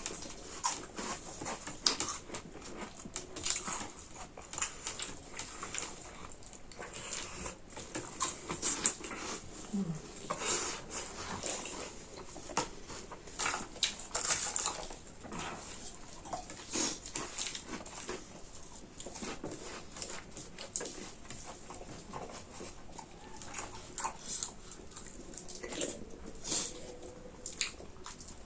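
Close-miked eating: wet chewing, lip-smacking and slurping of chicken curry, rice and chips, heard as a run of irregular short smacks and clicks.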